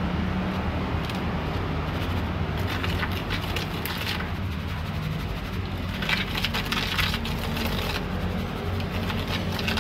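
Gritty scraping and crackling of a wooden stick stirring a cement, sand and crushed-firebrick mix in a plastic cup, in two spells about three and seven seconds in. A steady low hum runs underneath.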